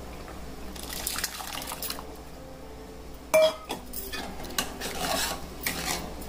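Cooked dal water being poured into sambar in a metal kadai, then a metal ladle stirring and scraping the pan, with one sharp metal clink about halfway through.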